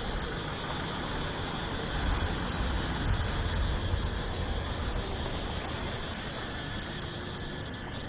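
Pickup truck driving slowly past close by, its engine rumble loudest a couple of seconds in and fading after about five seconds, over background street traffic.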